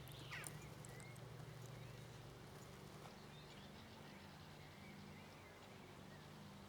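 Near silence: faint outdoor ambience with a low steady hum and a few faint bird chirps in the first second.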